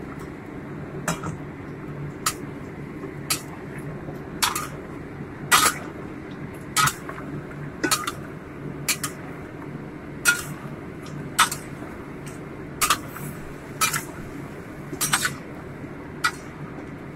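Metal spatula knocking and scraping against a wok while chicken pieces and onion chunks are stirred, about one stroke a second, over a steady low hum.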